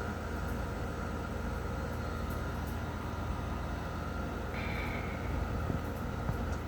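A 2001 Trane XE1000 5-ton heat pump outdoor unit running with a steady hum at the end of a defrost cycle. About four and a half seconds in, a hiss with a faint falling whistle starts and lasts a couple of seconds, as the reversing valve shifts the unit back from defrost to heating.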